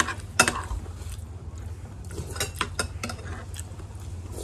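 Fork and plate at a meal: scattered light clicks and taps, one sharper about half a second in and a quick run of them between two and three seconds, over a steady low hum.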